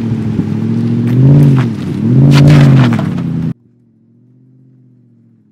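Lexus GX SUV's V8 engine revving twice under load as it climbs over rock, with tyres crunching and cracking on stones. About three and a half seconds in, this cuts to the same engine heard faint and distant, still rising a little in pitch now and then.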